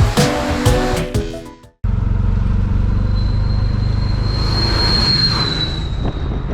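Background music with a beat fading out, then a vehicle engine running steadily, a low rumble with a thin high whine over it.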